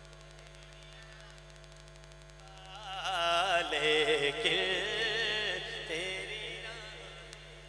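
A male naat reciter singing a long, drawn-out phrase with a wavering, ornamented melody into a handheld microphone over a sound system. The singing starts about three seconds in and fades near the end; before it there is only a faint steady hum.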